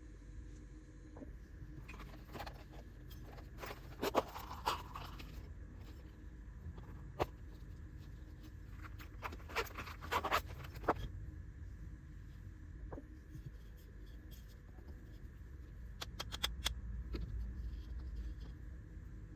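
Packaging and small accessories being handled: scraping and rustling with a few sharp clicks, heaviest in two spells in the first half, then a quick run of clicks later on, over a low steady hum.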